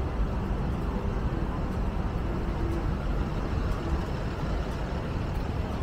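City street traffic: a steady rumble of cars and other vehicles passing on a busy downtown avenue.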